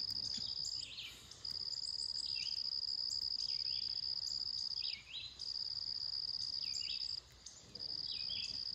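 An insect trilling in a steady high buzz, in long stretches broken by short pauses about a second, five seconds and seven and a half seconds in, with short falling bird chirps under it.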